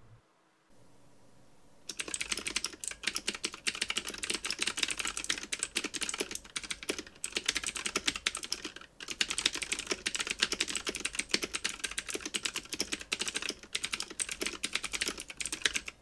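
Two-handed typing on a Mechanical Eagle Z88 mechanical keyboard with Otemu blue clicky switches: a dense, fast stream of key clicks starting about two seconds in, with a brief pause about halfway through.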